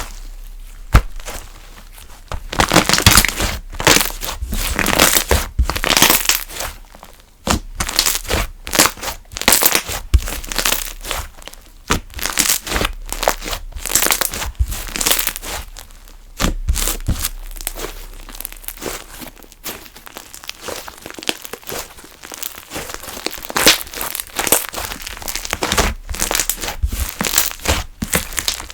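Hands squishing, pressing and stretching a slime, making irregular sticky crackles, pops and tearing sounds that come in thicker bursts at times.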